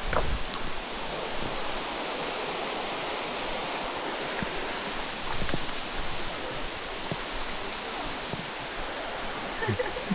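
Steady rushing water of a waterfall, an even hiss that does not change, with a few faint ticks over it.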